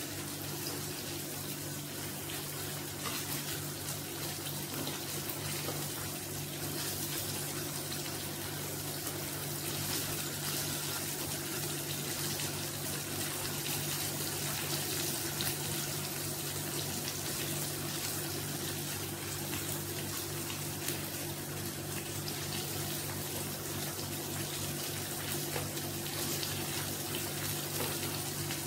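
Flour-coated chicken pieces deep-frying in hot oil in a pan, sizzling steadily, over a steady low hum.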